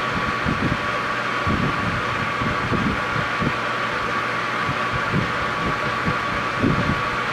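Metal lathe running at slow speed with the half-nuts engaged on the lead screw, the carriage feeding along to chase a thread: a steady mechanical hum and hiss with irregular low thumps from the drive.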